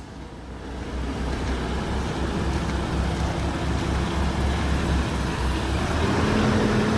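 An old Peterbilt semi truck's diesel engine pulling away. It grows steadily louder, and its pitch starts to rise near the end as it picks up speed.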